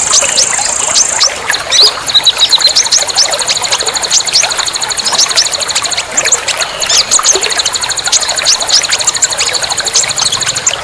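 Many small songbirds chirping over a continuous, fast, high-pitched trill, with dozens of short, quick chirps overlapping throughout.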